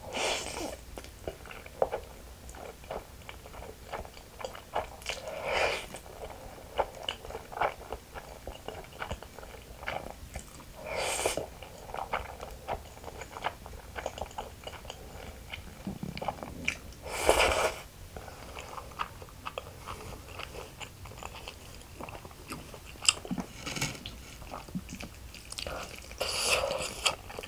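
A person eating spicy stir-fried ramen noodles with cheddar cheese: wet chewing full of small clicks, broken by about five slurps of noodles, each under a second long.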